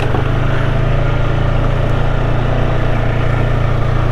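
Off-road vehicle engine running at a steady speed while riding a brushy trail.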